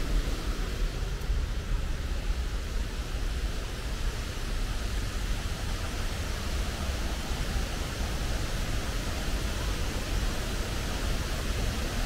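Black Linn Waterfall rushing steadily, a constant roar of falling water heavy in low rumble.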